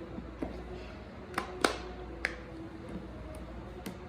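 A few sharp, separate clicks and taps from handling a Lego set and its packaging while trying to get it open. The loudest click comes just under two seconds in. A faint steady hum runs underneath.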